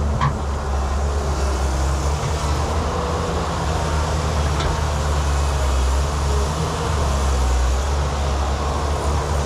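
Excavator's diesel engine running steadily at a constant speed, with a couple of faint clicks.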